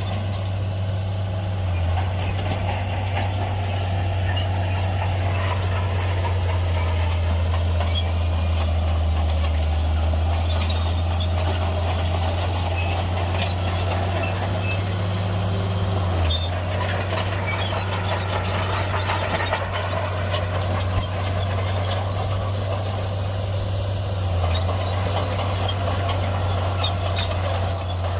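Diesel engine of a heavy earthmoving machine running steadily under load, a continuous low drone.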